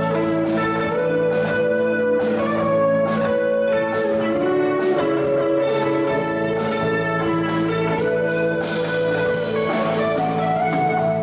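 Live band playing an instrumental number: electric guitar, electric bass, keyboard and drum kit, with regular cymbal strokes keeping time.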